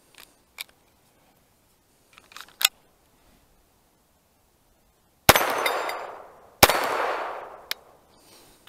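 Two pistol shots from a Glock 19 fitted with an Advantage Arms .22 LR conversion kit, just over a second apart, each trailing off in a long echo. A few light clicks of gun handling come before them and one sharp click follows.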